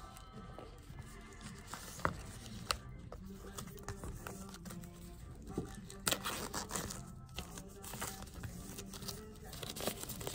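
Clear plastic shrink-wrap crinkling and tearing as it is peeled off a CD case by hand, with scattered sharp crackles, over background music with held notes.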